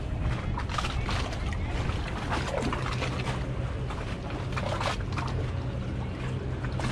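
Wind rumbling on the microphone over moving water, with scattered short scratchy rustles as a small squid on its jig is handled.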